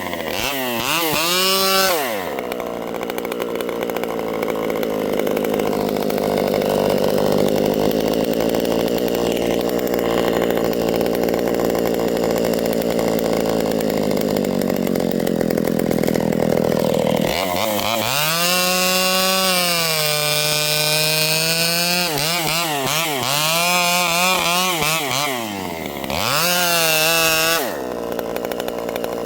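Pioneer P51 two-stroke chainsaw, stock with a pipe fitted, revving briefly and then running under load in a cut for about fifteen seconds. After that it is revved up and down several times and drops to a lower, steadier pitch near the end.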